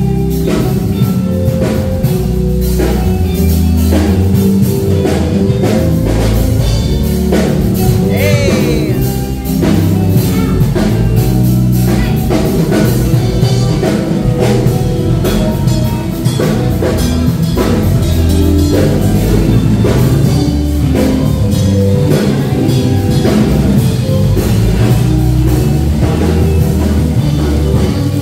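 Live band playing rock music with a drum kit, guitar and some singing, a steady beat throughout.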